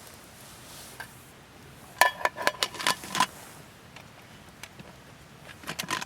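Metal utensils clinking against metal cookware: a quick run of sharp, briefly ringing taps about two seconds in, and a few more near the end.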